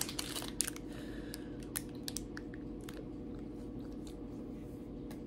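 Someone chewing a crunchy snack: a scatter of small crunches and clicks, thickest in the first few seconds, over a steady low hum.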